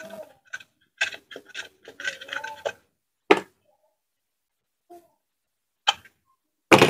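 Plastic blender jar base being handled and rubbed by hand: a run of short scraping and rubbing strokes for the first three seconds, then a few separate knocks, with a loud thud near the end.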